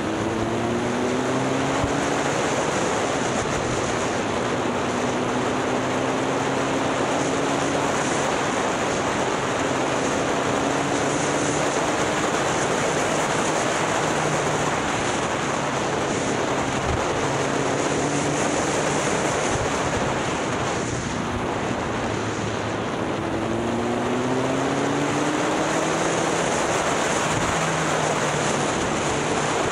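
Motorcycle engine running while riding, its pitch rising as it accelerates near the start and again about three-quarters through, under a steady rush of wind noise on the microphone.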